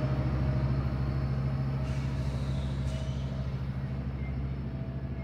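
Diesel locomotive of a Metrolink commuter train running with a steady low drone, fading gradually as the train pulls away.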